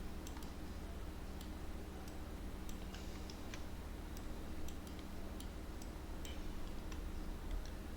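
Light, irregular clicking of computer controls as the mouse and keys are worked, over a steady low electrical hum.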